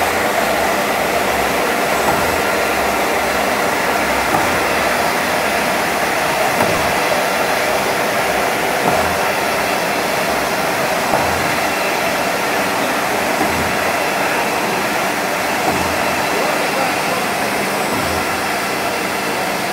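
Spindleless veneer peeling lathe running, its motors and knife peeling a log into a continuous sheet of veneer: a steady, dense mechanical noise with soft low thumps about every two seconds.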